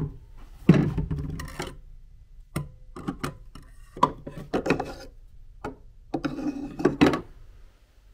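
Hard objects being handled in a wooden closet caddy: irregular knocks, clacks and rubbing against wood in three bursts.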